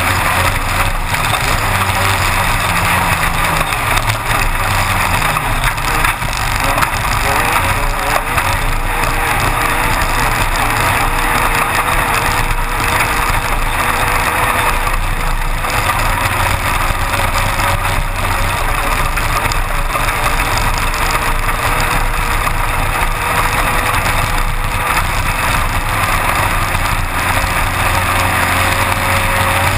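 Engine of a Class 1-1600 off-road buggy, a 1600cc air-cooled VW engine, running steadily, heard from inside the car with a constant noisy wash over it. The pitch wavers a little in the first few seconds and then creeps slowly upward.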